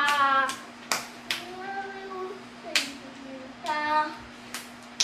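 A child singing short phrases of a Cebuano Christmas song and clapping along. Several sharp handclaps fall between the sung notes, about a second apart.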